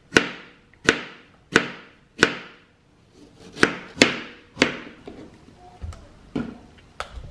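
Kitchen knife chopping strawberries on a cutting board: sharp knocks of the blade on the board, about one every two-thirds of a second, growing fewer and softer in the last few seconds.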